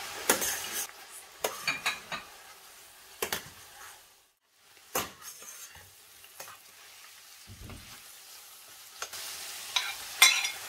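Meat, mushrooms, onion and green pepper sizzling in a stainless-steel frying pan while a metal spoon stirs them, with scattered scrapes and clinks of the spoon against the pan. The sound drops out briefly about four seconds in, and the sizzle is quieter after that.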